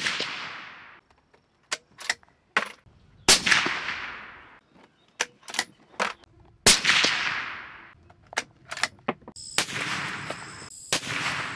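Three suppressed rifle shots from a .308 Winchester Ruger American bolt-action, about three and a half seconds apart. Each is a sharp crack with a trailing echo, and the bolt clicks as it is cycled between shots. Softer bangs with ringing come near the end.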